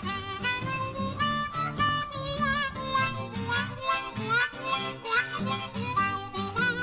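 Background music led by a harmonica, its notes bending up and down over a steady lower accompaniment.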